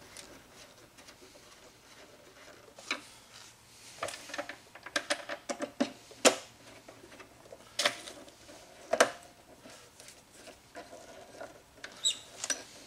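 Scattered light clicks, taps and scrapes as Phillips screws are started and turned to fasten the handle onto a Hypertherm Powermax 30 plasma cutter's case, with faint squeaky ticks near the end.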